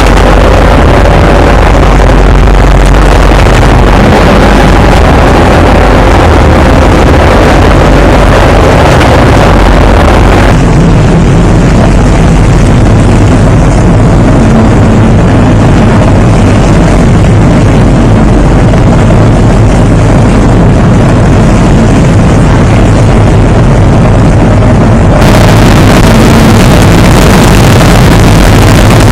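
Loud, steady rumble of the training ship Umitaka under way at sea: a constant low engine hum under a rush of wind and water noise. The sound changes abruptly about ten seconds in and again near the end.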